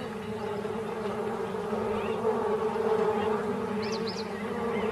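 A swarm of bees buzzing steadily around a water pit. Two short high chirps come about four seconds in.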